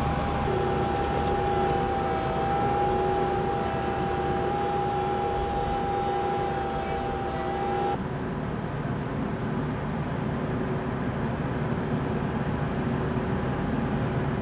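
Compact tractor engine running steadily while the front loader's grapple is worked, with a steady hydraulic whine over it that cuts off abruptly about eight seconds in.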